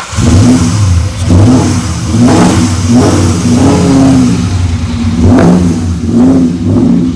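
Freshly swapped Ford 4.6-litre DOHC V8 catching and running, revved in about six short throttle blips.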